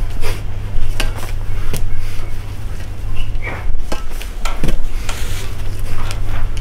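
Iron plates on a loaded barbell clinking and knocking against the bar during repeated explosive lifts, a series of sharp knocks over a steady low rumble.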